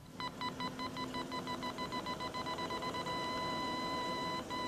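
Parking-distance warning beeper on a BMW 735i: a fast series of electronic beeps, about six a second, that merge into one steady tone about three seconds in. The steady tone signals that the car's rear is very close to an obstacle.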